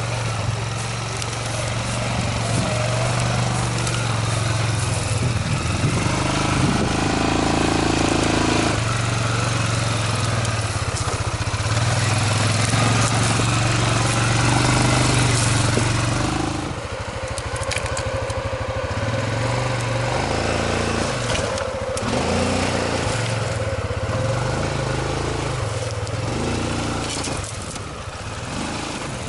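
Quad bike (ATV) engine running under load as the machine crawls over rocks and brush, its note rising and falling with the throttle. Tyres crunch over stones and undergrowth.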